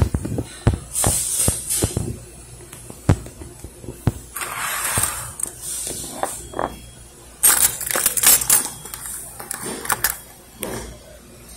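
Things being handled on a tabletop: a run of sharp clicks and knocks, with rustling about four seconds in and a jingle of keys being picked up a little later.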